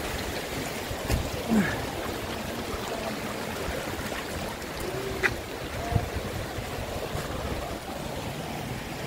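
Mountain stream running over stones, a steady rush of water, with a few sharp knocks on rock from people stepping across the stones.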